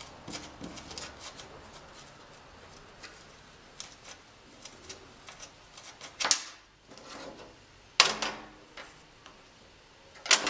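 Faint small clicks and scrapes of fingers turning the saw nut and screw out of an old hand saw's wooden handle, then three louder sharp knocks, about two seconds apart, as the saw is handled on the workbench.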